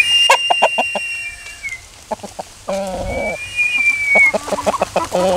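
Young Asil chickens clucking, with two long, high, thin calls: one at the start lasting nearly two seconds, and a shorter one about three seconds in that drops in pitch at its end.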